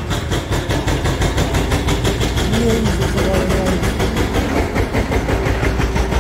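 Demolition excavators running steadily, a low diesel engine drone with a fast, regular clatter over it.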